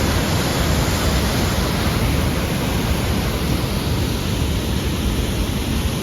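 Steady, loud rushing of a fast, snowmelt-swollen mountain river.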